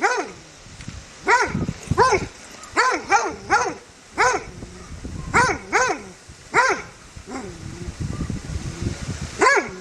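A dog barking aggressively in short, separate barks, singly and in quick pairs, each bark rising then falling in pitch. The barks break off near the end for about two seconds of low rumbling, then start again.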